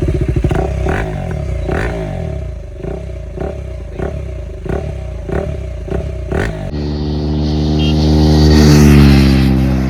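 KTM Duke 390's single-cylinder engine through a loud full-system exhaust, blipped over and over with sharp cracks and falling revs, then a steady engine note that swells to a peak and fades as the bike passes.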